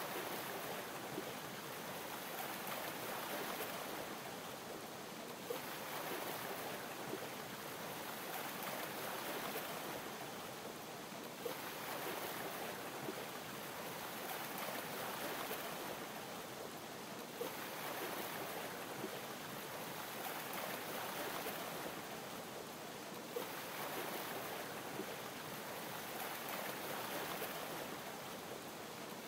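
Water lapping: a steady watery hiss that swells and eases about every six seconds, with a few faint clicks scattered through it.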